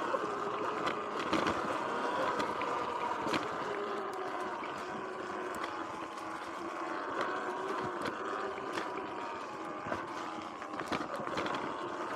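Sur-Ron X electric dirt bike riding along a dirt single-track: the electric motor and drivetrain whine, rising and falling slightly with speed, over tyre noise, with frequent sharp clicks and knocks.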